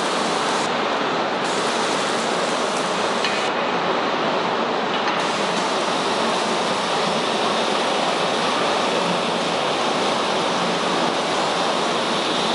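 Open-flame gas burners under the rocking mold of a rock-and-roll rotational moulding machine, burning with a steady, even rushing noise.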